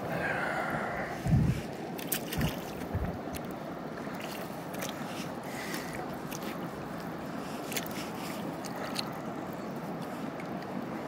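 River water rushing and sloshing around a kayak just below a rapid, with a few low thumps in the first three seconds and faint splashes.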